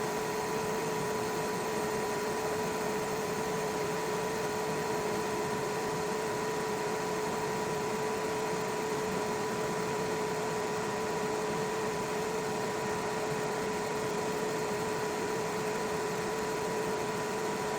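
xTool F1 Ultra laser engraver running: steady fan noise with a constant two-tone whine.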